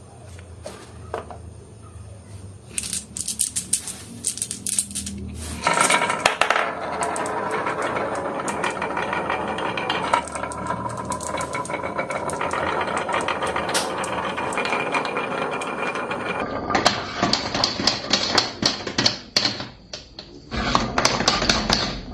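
Marbles rolling and clattering along a marble run: scattered clicks at first, then a dense, steady rattle of rolling marbles for about ten seconds, then a run of sharp clicks and knocks.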